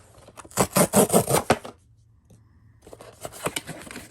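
Packaging being handled and opened: a burst of scraping and rustling lasting about a second, a short pause, then lighter scratching and small clicks.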